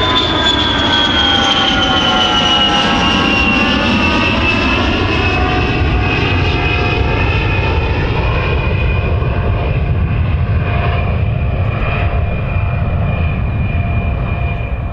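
Fixed-wing aircraft engine running with a steady loud roar and a high whine that slides down in pitch over the first few seconds, then holds steady.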